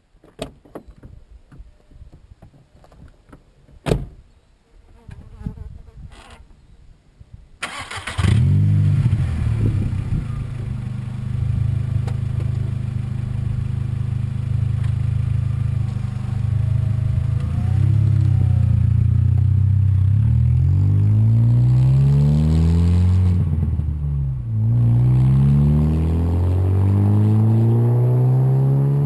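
Faint clicks and a single sharp knock, then about eight seconds in a straight-piped VW Golf 2.0-litre four-cylinder engine starts and idles loudly. From a little past halfway it is revved again and again, its pitch rising and falling with each blip.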